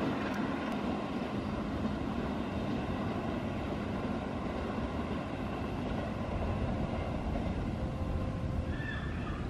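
Freight train of tank wagons rolling away along the track: a steady, distant rumble of wheels on rails.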